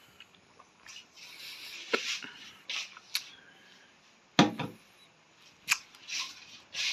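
Scattered rustling and light taps, like handling and movement close to the microphone, with one sharp, louder thump about four and a half seconds in.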